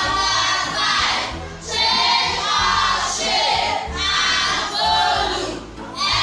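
Several voices singing together in phrases of about a second each, as a song.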